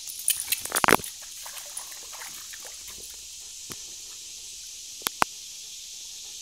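Doberman splashing about in shallow creek water: a quick cluster of splashes in the first second. Then a steady faint hiss with two sharp clicks about five seconds in.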